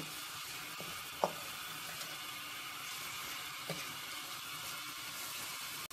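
Minced beef and onions sizzling steadily in a pan over high heat, stirred and turned with a wooden spoon.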